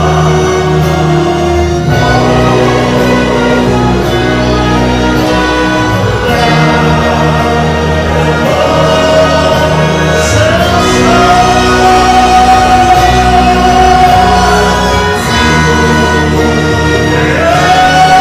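Opera music: operatic singing over orchestral accompaniment, the voice holding one long note through the middle and starting another near the end.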